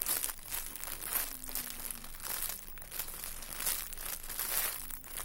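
Irregular crinkling and rustling handling noise, many short scratchy rustles one after another.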